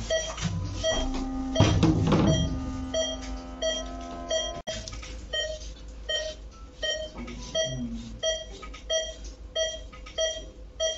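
Patient monitor's pulse-oximeter beep sounding steadily at about two short beeps a second, each beep marking a heartbeat. A louder handling noise comes about two seconds in.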